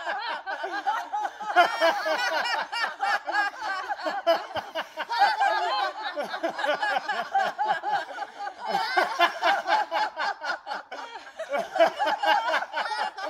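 A group of people laughing together, many voices overlapping in quick, pulsing bursts. This is deliberate group laughter in a qigong laughing exercise.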